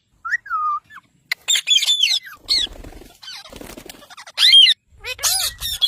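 Pet parrots squawking and giving short calls that slide up and down in pitch, several in quick succession, with a stretch of rustling noise in the middle.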